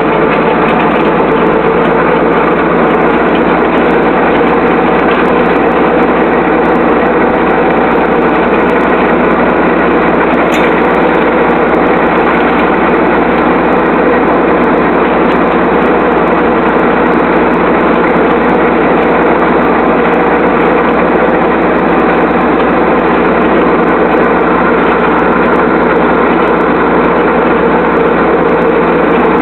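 Tractor engine running steadily at a constant working speed, with no change in pitch or level, while it drives a PTO rotary hay tedder. It is heard loud and close, from the operator's seat.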